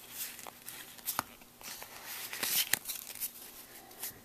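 Foil wrapper of a Pokémon Platinum Arceus booster pack crinkling and being torn open by hand, in several short rustling bursts with a few small clicks.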